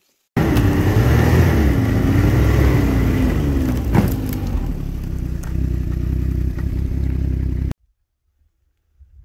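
Snowmobile engine running under way, its pitch rising and falling with the throttle, with one sharp knock about four seconds in. It cuts in suddenly just after the start and cuts off suddenly near the end.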